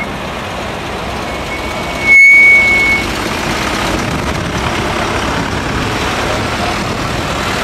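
Vintage police car driving slowly past, its engine and tyres giving steady road noise. About two seconds in, a loud, high single-tone horn blast sounds for under a second.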